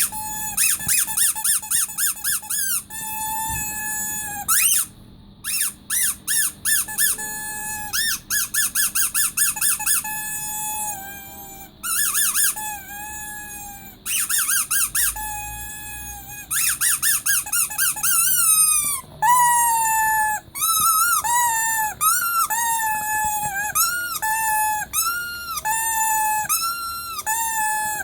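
Rubber squeaky toy bear squeezed over and over: quick runs of short, high squeaks, then longer squeaks about once a second, each rising and falling in pitch, for about the last third.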